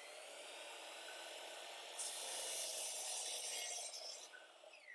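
Miter saw motor running, then its blade cutting into plywood about two seconds in with a louder, brighter sawing noise for about two seconds. Near the end the motor is switched off and the blade winds down, falling in pitch.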